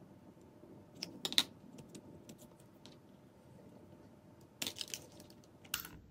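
A few light clicks and taps of small craft tools handled on a desk: metal tweezers set down about a second in, then a plastic tape runner picked up near the end.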